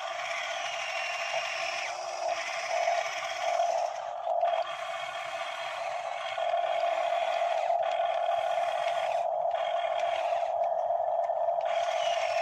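Electric motors and gearing of radio-controlled model excavators whining steadily as the machines track through mud and move their booms. The whine wavers at first and grows louder and steadier about six seconds in.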